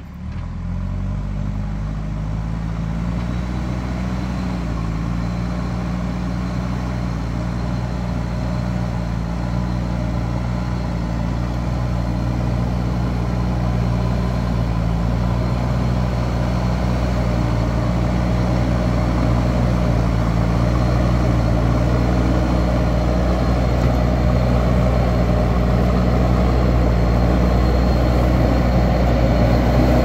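JCB backhoe loader's diesel engine working under load as the machine pushes soil and tree debris with its front bucket. It runs with a steady note that wavers slightly in pitch and grows gradually louder as the machine comes closer.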